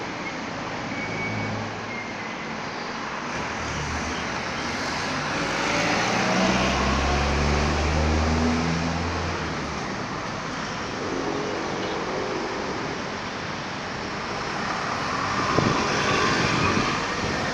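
Outdoor traffic noise: a steady background rush with a low engine hum that swells and fades about six to nine seconds in.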